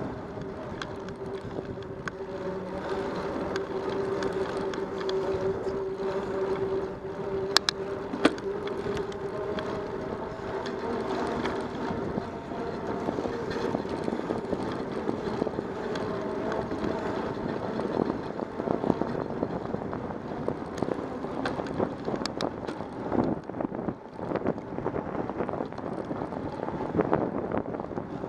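Wind rushing over the microphone of a bicycle riding along a paved path, with tyre and road noise, a steady hum that fades out about eleven seconds in, and scattered sharp clicks and knocks from bumps, two of the loudest about eight seconds in.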